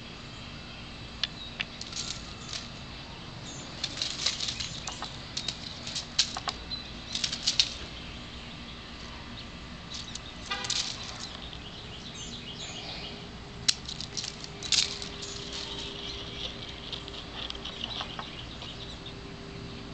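Dry fallen leaves crunching and rustling in short, irregular bursts, several times over, against a faint steady background.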